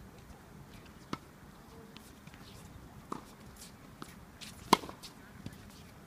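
Tennis ball being hit by rackets and bouncing on a hard court during a rally: sharp pops about a second in and about three seconds in, and the loudest crack, with a brief ring, near five seconds, with fainter taps between.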